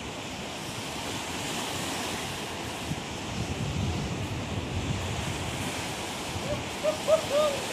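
Surf breaking and wind on the microphone, a steady rushing noise, with a few short rising-and-falling chirps near the end.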